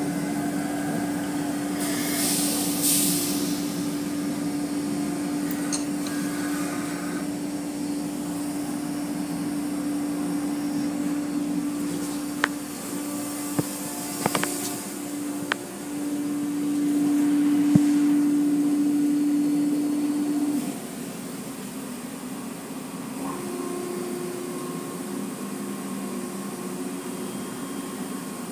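Automatic car wash machinery running behind glass: a steady motor hum, with a burst of spray hiss about two seconds in and a few light knocks. The hum cuts off about twenty seconds in, leaving a fainter, higher hum.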